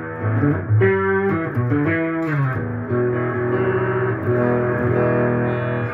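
Electric guitar in its clean tone on the neck pickup, played through a PRS MT15 tube amp into a cabinet with a Vintage 30 speaker: ringing chords that change several times in the first couple of seconds, then a chord held and left to sustain.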